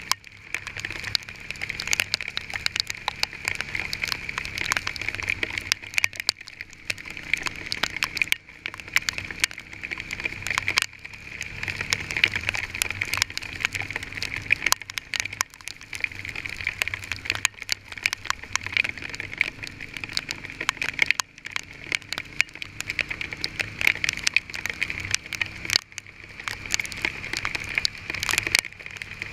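Hailstones pelting a vehicle in a dense, irregular clatter of sharp hits that never lets up.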